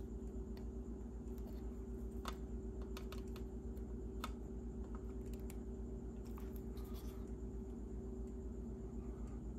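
Scattered light clicks and taps of needle-nose pliers and other small metal tools working on the pins of a circuit board, over a steady low hum.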